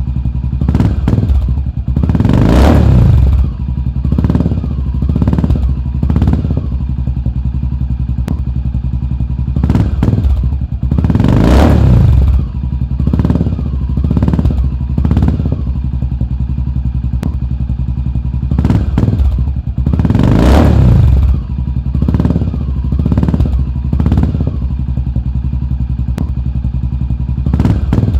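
Honda FMX 650's single-cylinder four-stroke engine breathing through an aftermarket sport exhaust, idling and being revved again and again. It goes in groups of quick throttle blips and bigger revs that climb and fall back to idle.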